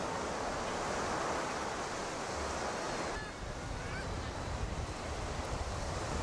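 Steady rushing noise of surf on a beach mixed with wind buffeting the microphone; about three seconds in the hiss thins and a low wind rumble grows stronger.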